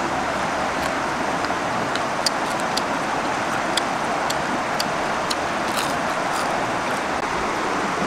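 A river flowing over a stony bed makes a steady rushing sound. Light, crisp clicks come through it every half second or so: crunchy chewing of fried crickets.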